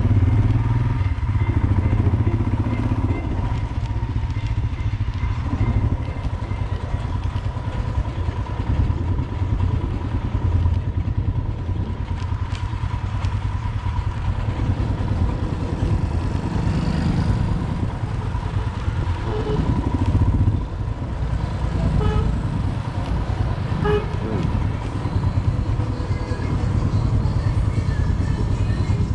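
Motorcycle engine running as the bike rides slowly along a town street, a steady low rumble throughout.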